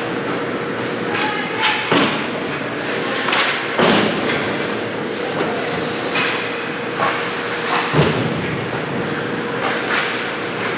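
Ice hockey play in a rink: a string of sharp knocks and thuds from sticks, puck and the boards, the loudest about 2, 4 and 8 seconds in, over a steady hum.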